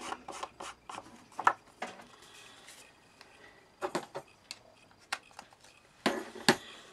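An ink pad dabbed and rubbed briefly along a paper card's edge, then scattered light taps and knocks as craft items are handled and set down on a paper-covered table; the loudest are two sharp clicks close together near the end.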